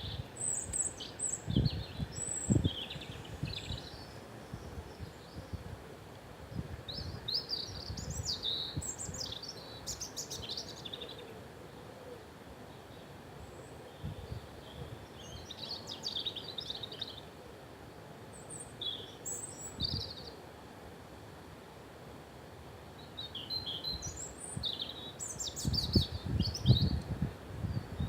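Several small birds chirping and singing in short bursts of high notes over a faint steady hiss. Low rumbling thuds come near the start and again in the last few seconds.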